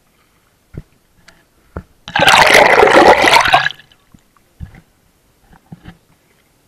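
Water splashing and rushing loudly for about a second and a half near the middle, from a kayak paddle stroke close to the microphone. A few short light knocks come before and after it.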